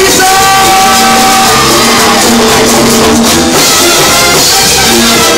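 Live brass band with saxophones, French horns, sousaphones and drum kit playing a tune, the horns holding long chords over the drums.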